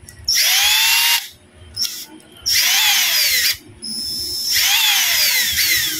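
Bare brushed DC motor from a cordless drill, run straight off a 19-volt laptop power adapter through the drill's trigger switch instead of its failed battery pack. It whines in three short runs, the last one longer, the pitch rising as it spins up and falling as it slows after each release of the trigger.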